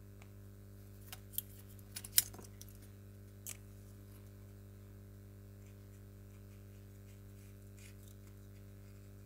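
A few light clicks and taps of craft supplies being handled on a work table, the sharpest about two seconds in, then only a faint steady low hum.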